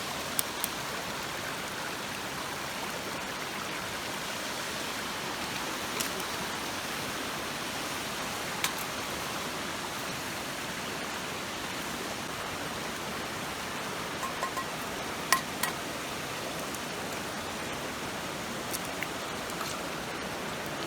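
River in a gorge rushing steadily, with a few light clicks and knocks now and then.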